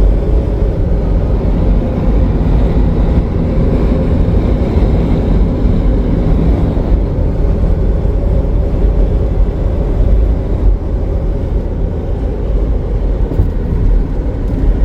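Steady road noise inside a moving car: a constant low drone of tyres and engine while driving.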